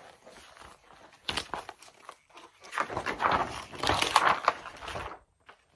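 Heavy pages of a large spiral-bound picture book being flipped over by hand, rustling and crackling. A short rustle comes about a second in, then a longer, louder bout of rustling as the pages turn.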